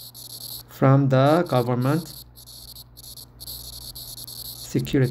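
Insect trilling high-pitched in short stretches of up to a second, starting and stopping throughout, behind a man's voice.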